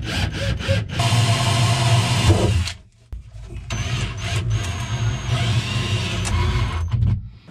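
Cordless drill/driver driving screws into the boat's compartment wall: the motor runs steadily for about two seconds, stops briefly, then runs again for about four seconds.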